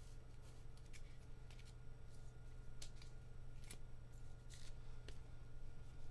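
2022 Topps Holiday baseball cards being handled and laid out: scattered soft slides and flicks of card stock.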